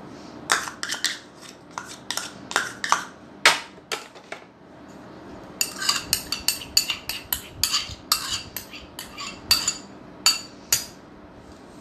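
A spoon clinking and scraping against a bowl while melted butter is scraped out of it. A few scattered knocks come first, then from about six seconds in a quick run of clicks, roughly four a second.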